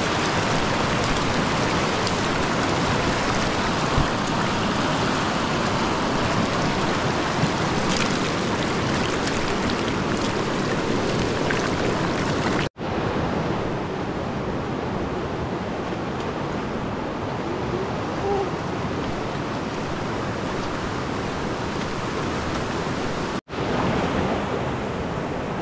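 Rushing river water: a loud, steady roar of fast-flowing water. It cuts out for an instant twice, about halfway through and near the end.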